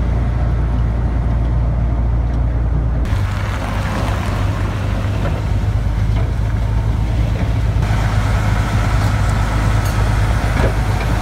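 ZIL-131 snow blower truck working, its engine and front auger rotor running as a steady low rumble under a hiss of snow being chewed up and thrown. The sound changes abruptly about three seconds in and again near eight seconds.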